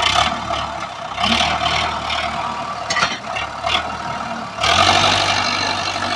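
Sonalika 750 diesel tractor engine working under load, pulling a fully loaded trolley up a gravel slope. The engine gets louder and deeper about four and a half seconds in, and there are a few sharp clicks shortly before.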